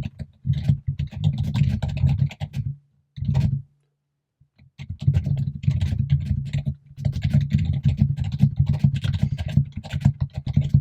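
Fast, loud typing on a computer keyboard in long runs of keystrokes, broken by short pauses about three to five seconds in.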